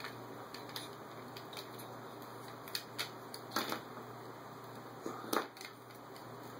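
Small plastic action figures being handled, giving scattered light clicks and rustles with a few sharper clicks now and then, over a low steady hum.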